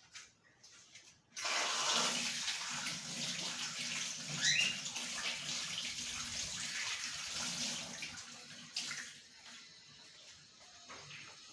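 Water running from a tap, turned on about a second in and easing off near the end, with a few light clicks before it starts.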